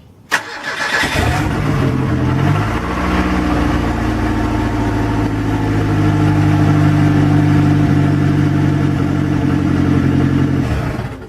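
A vehicle engine starting: a sharp click, a quick rising catch, then the engine running steadily at a low, even idle.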